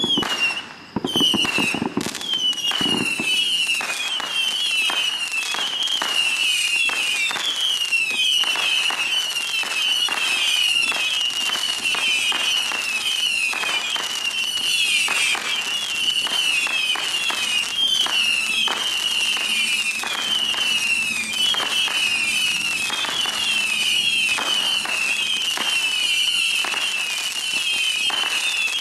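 A 200-shot Saturn missile battery firing in a continuous stream: many small rockets whistling shrilly at once, the whistles wavering and overlapping, with rapid pops and crackles throughout. A few heavier thumps come in the first couple of seconds.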